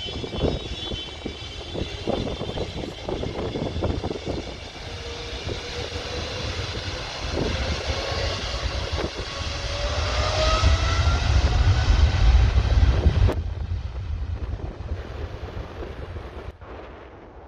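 Air Canada jet airliner's engines running, growing steadily louder with a whine that rises in pitch, then dropping away abruptly near the end. Wind buffets the microphone throughout.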